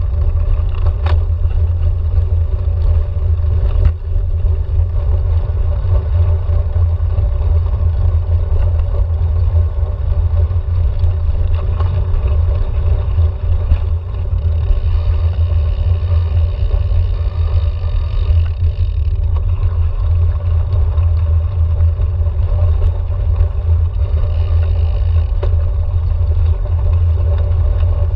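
Steady low rumble of wind buffeting and tyre and frame vibration picked up by a camera mounted on a cyclocross bike's handlebars as it rides over cobblestones, then dirt and gravel.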